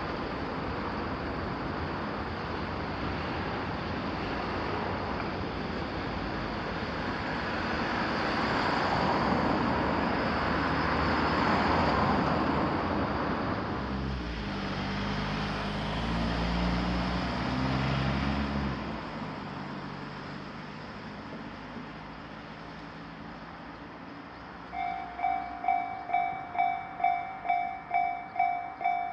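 Vehicles passing over a railroad crossing, the noise swelling about a third of the way in, with an engine running briefly past the middle. Near the end the Japanese railroad crossing's electronic warning bell starts ringing, about two strokes a second.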